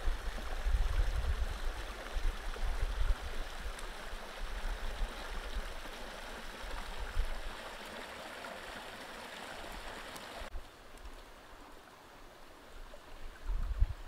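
Shallow rocky stream running over stones, an even rush of water with a low rumble underneath. About ten seconds in, the water sound drops abruptly and gets much quieter.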